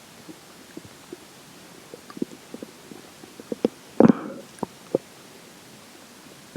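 Human stomach and intestines gurgling during digestion of swallowed water and air: scattered short gurgles and pops, with one louder, longer gurgle about four seconds in.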